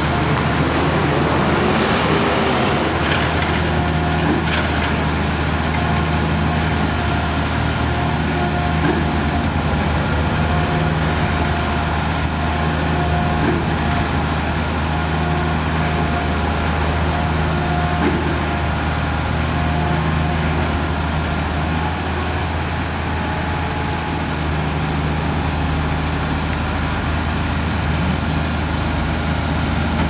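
Truck-mounted concrete pump's diesel engine running steadily with a low drone while the hydraulic boom folds up for transport.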